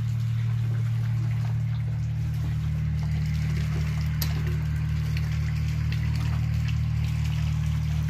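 Steady low electric hum, as from a motor running, with a few faint ticks and rustles.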